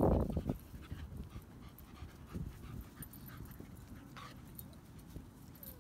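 Dogs moving about and sniffing on grass, with faint panting. A brief loud low rumble comes at the very start, then the sound settles to a quieter background.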